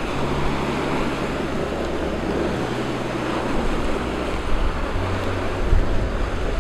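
Steady rushing noise of surf and wind. Underneath it, low held bass notes step to a new pitch every second or two.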